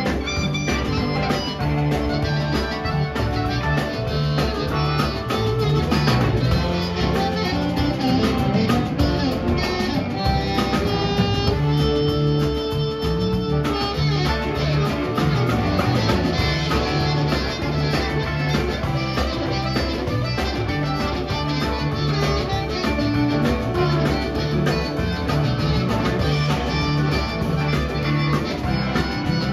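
Live band playing an instrumental passage: electric guitars, bass guitar and drums with a harmonica played into a microphone over them.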